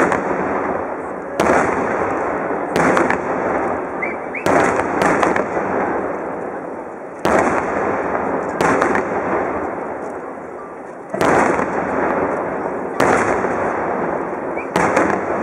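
Aerial firework shells bursting: about ten sharp bangs spaced unevenly a second or more apart, each trailing off in a long rolling echo.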